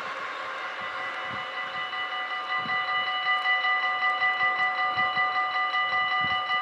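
Level-crossing warning bell ringing in quick, even strokes, about three a second, growing louder about two and a half seconds in. At the start, the noise of a receding freight train fades out beneath it.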